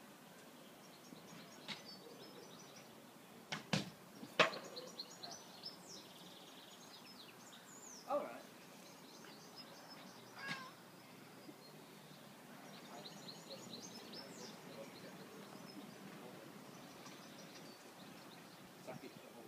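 Birds singing: several quick runs of short, high repeated notes. Two sharp knocks about four seconds in are the loudest sounds, with a couple of shorter knocks or rustles later.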